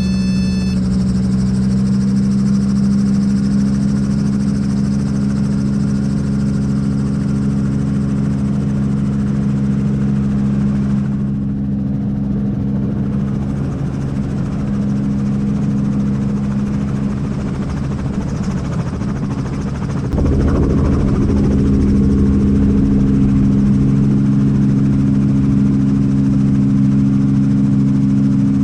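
Helicopter engine and rotor running with a steady, even hum. It grows louder and rougher about two-thirds of the way through.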